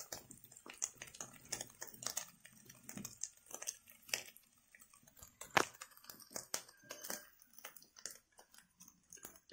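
Dried fish frying in hot oil in a steel kadai over a wood fire: quiet, irregular crackles and pops, several a second, the sharpest about five and a half seconds in.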